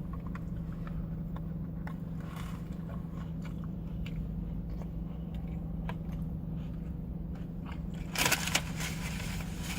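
A person biting into and chewing a hot dog loaded with Whopper toppings, with small wet mouth clicks, over the steady low hum of an idling car. About eight seconds in there is a louder, crunchier rustle.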